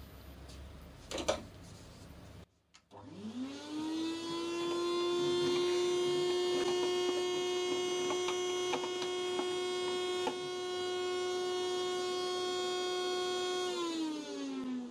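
A vacuum motor switches on about two and a half seconds in, whines up to a steady pitch, and runs as the hose sucks up wood chips from a router table's dust box, with scattered ticks of chips rattling through the hose. Near the end it is switched off and winds down, its pitch falling.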